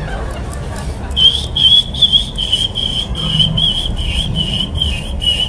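Fledgling Eurasian tree sparrows (maya) cheeping: an even run of short, high chirps, about three a second, starting about a second in.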